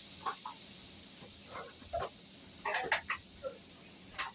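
Broccoli sizzling in a hot pan, a steady high hiss, with scattered short clicks and scrapes of kitchen utensils and a sharper knock near the end.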